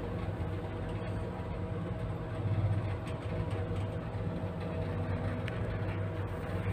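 Zremb passenger elevator travelling down, heard from inside the car: a steady low hum with a few faint steady tones from the drive and the car running in the shaft.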